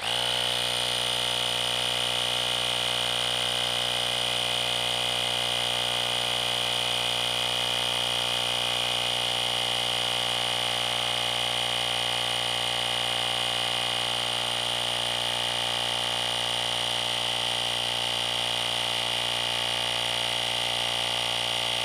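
Parkside 20 V cordless compressor switching on and running steadily, its motor and piston pump giving a continuous buzzing drone as it inflates a flat motorcycle tyre. The pitch sinks slightly as the tyre pressure builds.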